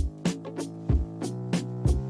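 Background music with a steady electronic drum beat over a bass line.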